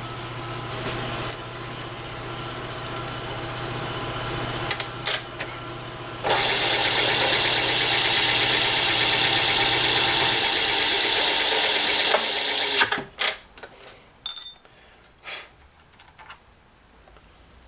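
Drill press motor running, then from about six seconds in a drill bit cutting dry into cast iron with a loud, steady cutting noise that grows brighter partway through. The drill stops about seven seconds later, followed by a few light metallic clicks of tools being handled.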